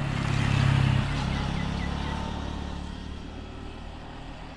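A motorcycle engine passing by, at its loudest about a second in and then fading away.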